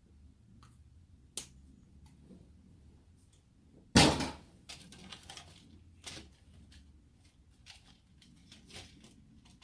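Clicks and knocks of a plastic electronic toy being taken apart by hand, with one loud knock about four seconds in and lighter clicks after it.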